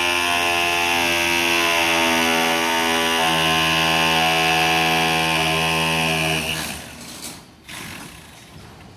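A small motor running steadily at one speed, with a slight change in its note about three seconds in, then cutting off about six and a half seconds in. Quieter knocks and site noise follow.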